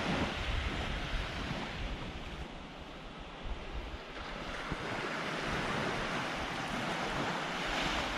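Small waves washing up on a beach, the surf dipping about three seconds in and swelling again near the end, with wind buffeting the microphone.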